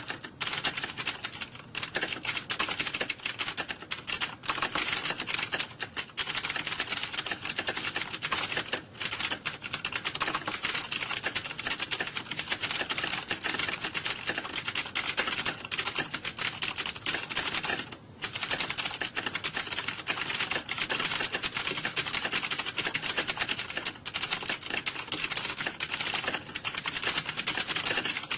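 Many computer keyboards being typed on at once, as in an exam hall typing test: a dense, continuous clatter of key clicks, thinning briefly about eighteen seconds in.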